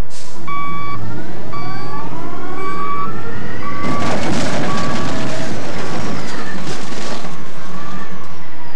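A giant rear-dump mining truck reverses with its reversing alarm beeping about once a second over its engine. About four seconds in, the car's body crumples and crunches under the rear tyres for about three seconds.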